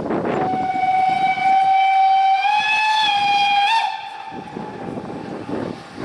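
Steam locomotive whistle sounding one long blast of about three and a half seconds on a single note that rises slightly near its end. Around the blast are the exhaust beats of the locomotive working its train.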